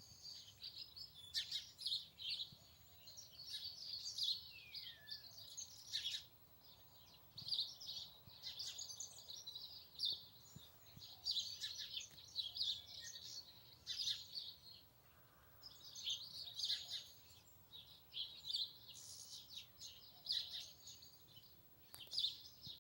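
Songbirds chirping and singing, many short high calls overlapping in quick runs with brief lulls, and one falling whistle about five seconds in.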